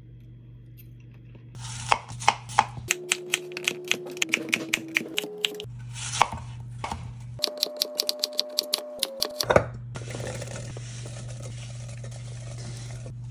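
Kitchen knife cutting apples into cubes on a cutting board: quick sharp taps, several a second, from about two seconds in until nearly ten seconds, with a few held tones behind them. After that comes a steady soft hiss over a low hum.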